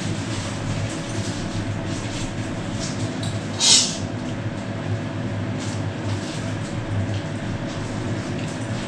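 A steady low mechanical hum, like a running fan, with faint clinks of tableware and one short hiss a little under four seconds in.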